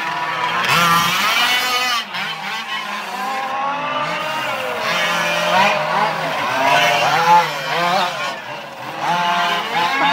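Small petrol engines of several 1:5 scale radio-controlled rally cars revving up and down as they race, the pitch rising and falling constantly. One car sounds loudest as it passes close by partway through.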